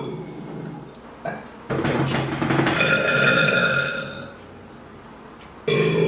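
A woman's long, loud burp, starting about two seconds in and lasting about two and a half seconds, with a steady pitch.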